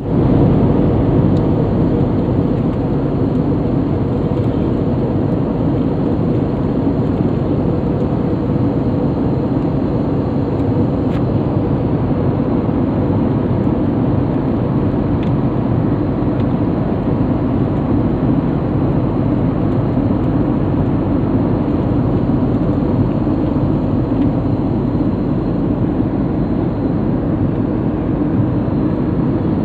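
Airliner cabin noise in flight: the steady rush of engines and airflow heard from a window seat, with a faint steady hum underneath.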